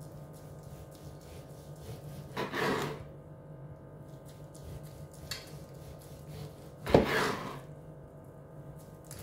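Long carving knife sawing through a roast pork shoulder on a wooden chopping board, in many faint back-and-forth strokes. Two louder strokes come about two and a half and seven seconds in, the second opening with a sharp knock. A steady low hum runs underneath.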